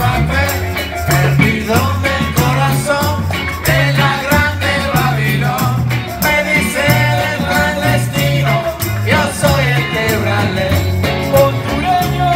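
Live band playing with male and female vocals over electric guitar, saxophone, bass and drums, the bass moving in short held notes.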